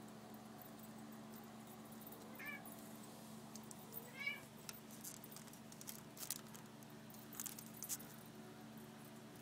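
Persian kitten giving two short, high mews about a second and a half apart, followed by a few light metallic clinks, over a faint steady hum.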